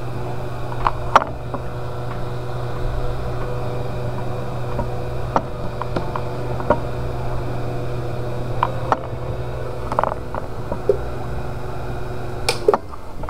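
Hot-air rework gun's blower running steadily with a low hum, heating the glued cap of an Apple Watch charger to soften the glue, with a few small clicks; the blower cuts off near the end.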